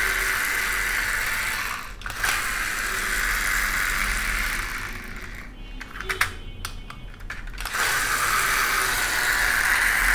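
Small plastic toy construction vehicles being handled, with mechanical clicking and rattling over a steady hiss. A cluster of sharp clicks comes about six to seven and a half seconds in.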